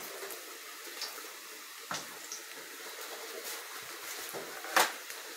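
Flour-coated jiló and sardine fritters sizzling steadily in a pan of very hot frying oil. A sharp click comes about two seconds in, and a louder brief knock comes near the end.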